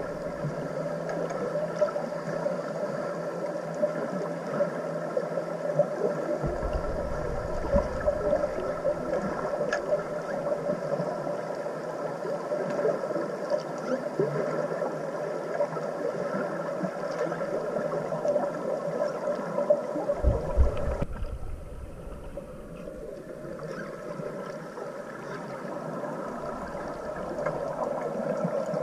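Steady underwater drone of a boat's motor and propeller carried through the water, with several held tones over a low hum. It thins out briefly about two-thirds of the way through, then comes back.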